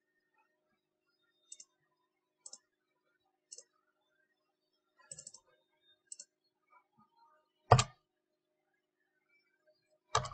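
Faint computer mouse clicks, single and spaced about a second apart, with one louder key-press knock about eight seconds in and a quick run of key taps near the end.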